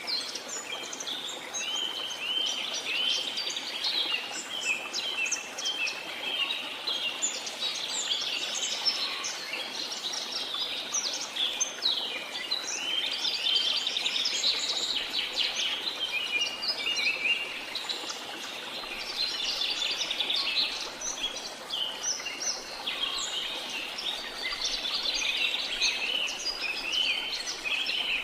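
Many birds chirping and singing at once in a dense, overlapping chorus, over a steady hiss of background noise that may be the waterfall.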